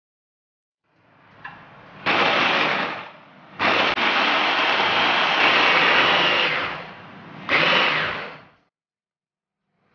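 An electric kitchen appliance's motor, such as a blender or food processor, runs in three bursts while grinding food: a short burst about two seconds in, a longer one of about three seconds, and a short one near the end. Between the bursts it runs more quietly.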